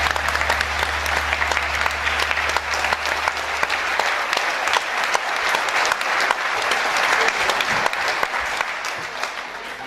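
Audience applauding, a dense patter of clapping that begins to die away near the end.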